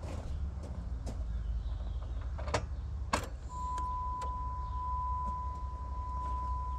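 Two sharp clicks about two and a half and three seconds in, then a steady high electronic tone that starts just after and holds, over a low steady hum.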